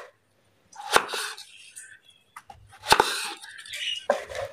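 Kitchen knife chopping through a raw pumpkin: two sharp chops about two seconds apart, each followed by a short crunching sound as the blade goes through the hard flesh.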